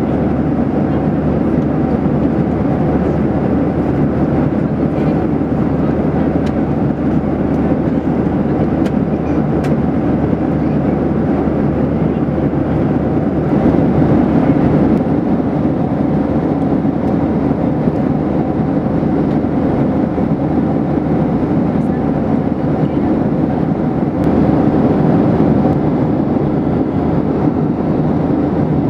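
Steady cabin drone of a Boeing 737-800 in flight, heard from inside the cabin: rushing airflow over the fuselage blended with the hum of its CFM56-7B turbofan engines. It swells slightly twice.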